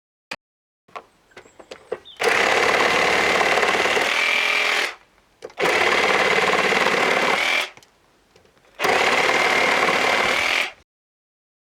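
Cordless reciprocating saw cutting through a spruce branch in three runs of about two to three seconds each, with a steady high whine over the rapid buzz of the blade, and a few clicks before the first cut.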